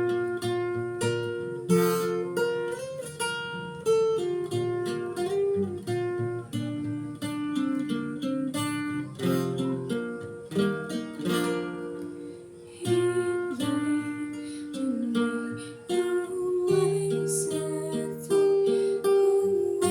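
Acoustic guitar playing a song's instrumental intro, a mix of picked notes and strummed chords that ring on.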